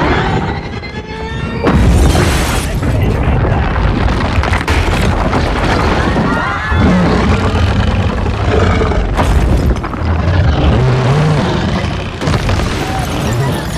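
Blockbuster action-scene sound mix: heavy booms and crashing rubble as a giant robot smashes through city buildings, with the loudest impact about two seconds in. Film score and panicked shouting and screaming from the fleeing crowd run underneath.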